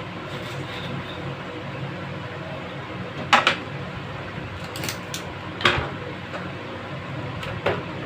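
Handling knocks as a metal RO booster pump is moved about on a plastic purifier cabinet: three short clunks, a few seconds apart, with a couple of light clicks between them, over a steady background hum.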